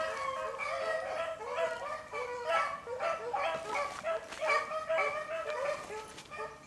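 A pack of beagles baying as they run a rabbit, many short calls overlapping one another without a break.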